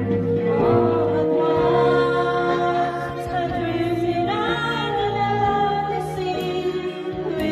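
A woman singing into a corded microphone over backing music, holding long notes that glide from one pitch to the next.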